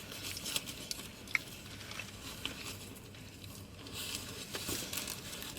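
Quiet food-handling and eating sounds: a cheeseburger being opened and picked apart, with scattered small soft clicks and crinkles.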